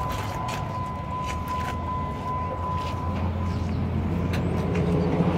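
Steady idle of a 2005 Dodge Ram 2500's 5.9 Cummins inline-six turbo diesel, growing louder near the end, with a few footsteps on concrete.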